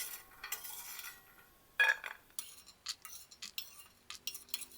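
Metal spoon scraping and clinking against a pan as fried peanuts are scooped out, with one sharper clink about two seconds in and a run of quick light clicks after it.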